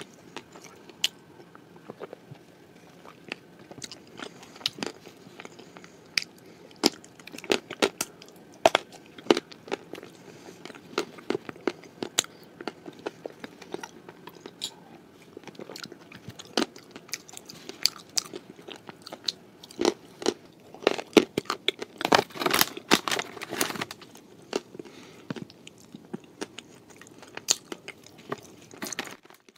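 Close-miked chewing and crunching of cookies eaten with blue clay paste: many sharp crunches at an uneven pace, with a denser run about two-thirds of the way through.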